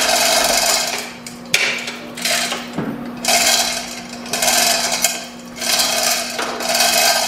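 Chain hoist's hand chain being pulled hand over hand, its steel links rattling and clinking through the hoist in repeated pulls about once a second, as a V-twin engine hangs from it.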